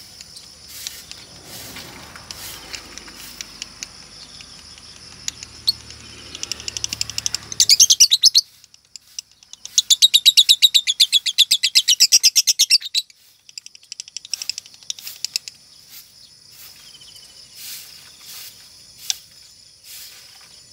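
Female lovebird chirping softly, then giving two long, rapid rattling trills, about two and three seconds long, with a short pause between them, then going back to scattered chirps. This long chattering song is what lovebird keepers call 'ngekek'. From a female it is taken as a sign that she has turned 'konslet' and sings like a male.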